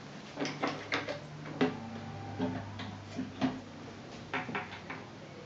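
Wooden carrying cover of an antique sewing machine being handled and lifted off its wooden base: a string of irregular clicks and light wooden knocks.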